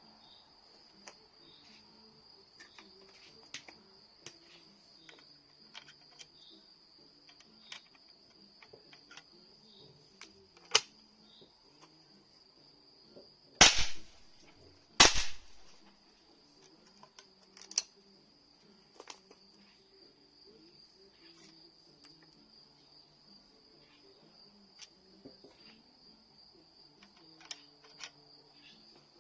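Two shots from a Keserű Godfather 19M rubber-bullet rifle, about a second and a half apart near the middle, with a few lighter sharp clicks shortly before and after. A faint steady high chirring of crickets runs underneath.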